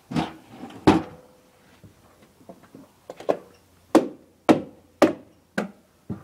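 Hammer blows on wood: two strikes near the start, then a run of about seven strikes roughly half a second apart.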